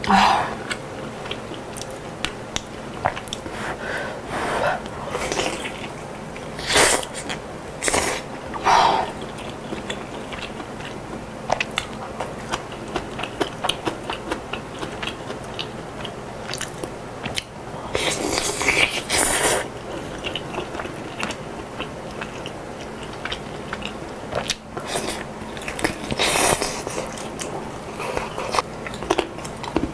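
Close-miked eating of chicken noodle soup: wet chewing of soft noodles and chicken, with several louder slurps of noodles, the longest a little past halfway.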